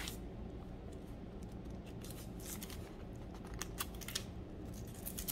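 Thin Bible pages being turned by hand: several short papery rustles and flicks as the pages are leafed through, over a faint steady low hum.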